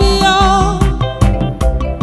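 A woman singing a gospel hymn to her own electronic keyboard with a drum beat: she holds the last note of a line, which ends within the first second, and then the keyboard and drums play on alone.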